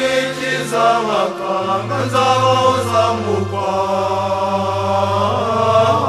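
A Kinyarwanda Catholic gospel song: voices singing a gliding, chant-like melody over a steady low held note.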